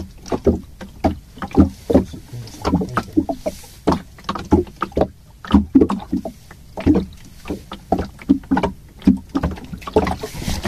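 Water slapping against the hull of a small fishing boat, a quick irregular run of short thuds and splashes, two or three a second.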